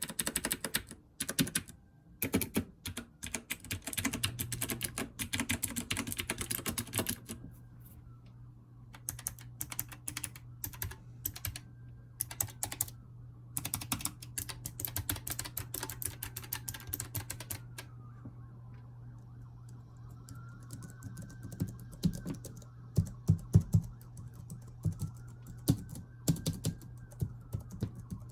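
Typing test on a multi-device Bluetooth computer keyboard: fast runs of key clicks for the first several seconds, then slower, sparser keystrokes, with a few heavier thumps near the end.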